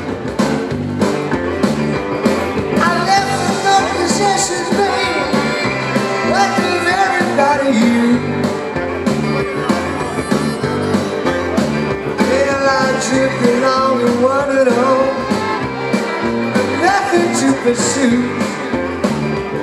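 A live rock band plays an instrumental break: drums and acoustic guitar keep a steady beat under a fiddle and a harmonica carrying the melody.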